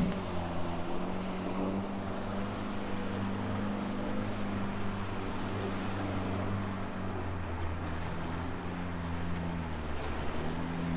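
Off-road vehicle engine running steadily at low revs, its pitch dipping and rising slightly a couple of times.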